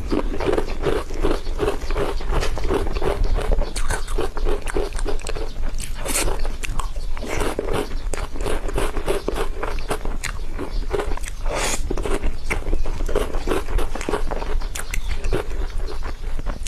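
Close-up eating of whipped cream cake: a continuous run of wet mouth sounds, chewing and lip smacks, dense clicks throughout.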